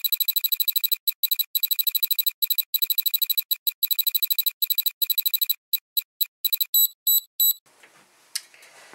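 Rapid high-pitched electronic beeping, many short beeps a second in bursts with brief gaps. It cuts off suddenly about three-quarters of the way through, leaving faint room noise.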